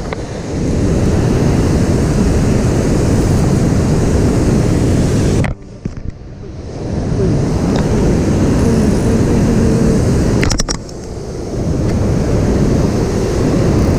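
River current rushing and splashing right at a camera held just above fast water, with wind buffeting the microphone. The noise drops away briefly twice, about five and a half seconds in and again near eleven seconds.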